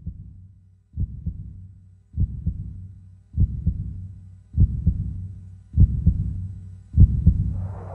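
Heartbeat sound effect: slow, low double thumps, about one beat every 1.2 seconds, growing steadily louder. Near the end a rushing rumble swells in beneath it.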